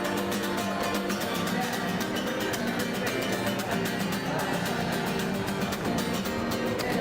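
Guitar music with a steady strummed rhythm.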